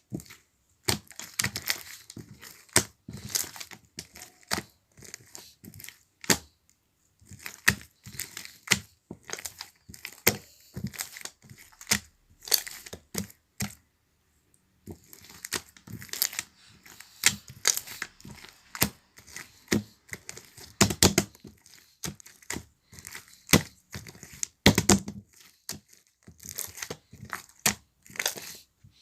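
Irregular crinkling and crackling: quick runs of sharp crackles with short pauses, one of about three seconds near the middle.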